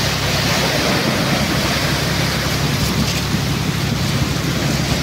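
Surf breaking and washing up the shore, with wind on the microphone, over a steady low drone from a tractor engine hauling in a beach seine net.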